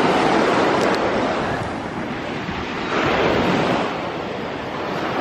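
Ocean surf washing onto the beach, swelling twice about three seconds apart.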